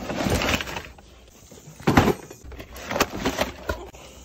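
Work handling noises: a rustling scrape in the first second, then a sharp knock about two seconds in and a few lighter knocks and clatters.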